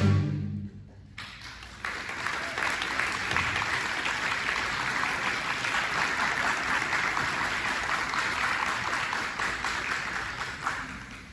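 The orchestra's last chord dies away in the first second, the low notes ringing on briefly in the hall. After a moment's hush the audience applauds steadily, the clapping thinning near the end.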